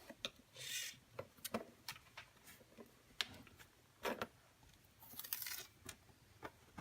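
Light scattered clicks and taps of small parts and tools being handled while fitting the front hubs and steering knuckles on an RC crawler axle, with two short scraping rustles.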